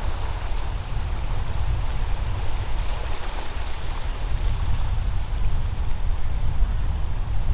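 Floodwater flowing in a steady rush, with a strong low rumble beneath it.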